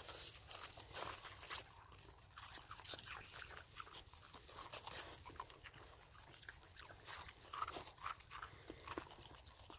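Huskies eating snow: faint, irregular crunching and crackling as they bite and lick mouthfuls of snow.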